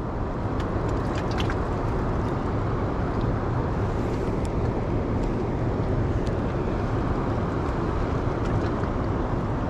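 Steady rush of river current flowing below a dam spillway, with a few faint clicks in the first couple of seconds.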